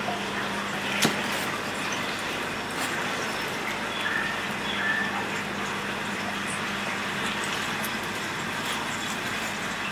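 Steady rush of moving water with a low steady hum from a reef aquarium's pumps and circulation. There is a single sharp click about a second in.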